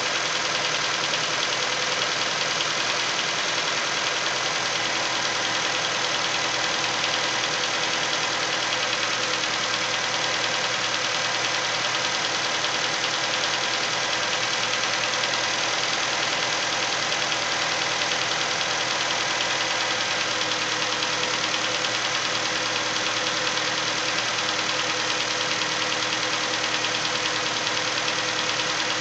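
Nissan Versa's four-cylinder engine running at a steady speed with a rapid, even tapping over it. The tap comes from around cylinder number 3 and persists only until the engine warms up.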